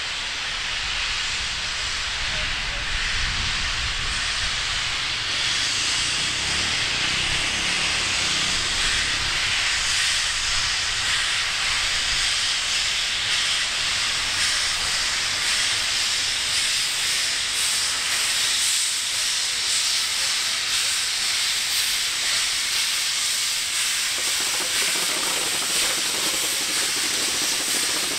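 Steam hissing steadily from the DR class 52 steam locomotive 52 8154-8, escaping around its cylinders, with no exhaust beats. The hiss grows louder over the first few seconds and then holds.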